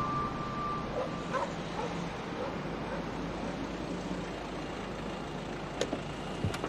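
A car's engine running as it pulls up, with a dog barking a few times in the distance early on and two sharp clicks near the end.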